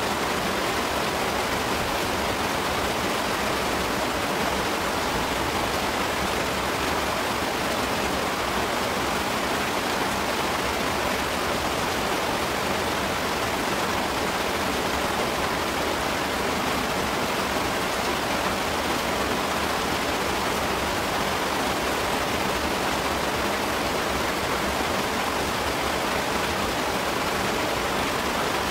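Loud, steady rushing noise, like a hiss, that never changes and covers any eating sounds.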